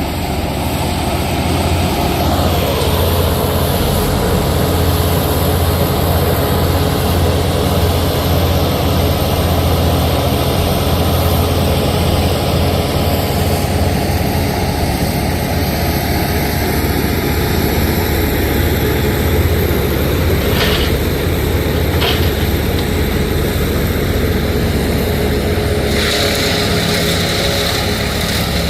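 Heavy engine running steadily at a constant speed, with two short sharp sounds a little over two-thirds of the way in.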